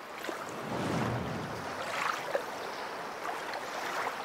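Waves and water noise on open water, with a low rushing swell about a second in.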